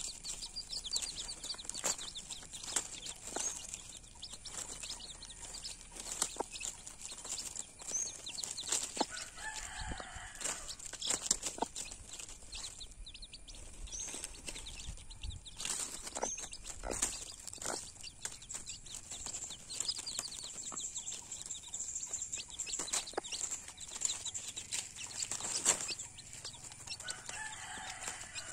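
Domestic chicks peeping continually in short high chirps while a mother hen and the chicks peck at food and rustle in dry leaves, giving frequent sharp taps. The hen clucks softly twice, about nine seconds in and again near the end.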